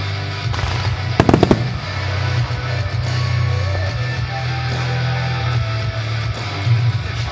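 Fireworks display set to music: a steady music track with a heavy bass line, and a quick run of several firework bangs about a second in.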